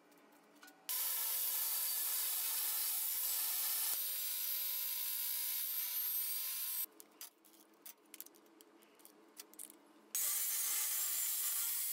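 Angle grinder with a cutting disc cutting through sheet steel, a steady grinding hiss that starts about a second in and stops about seven seconds in. A few seconds of small metal clicks follow as the disc is worked on with a spanner, then the grinder cuts again near the end.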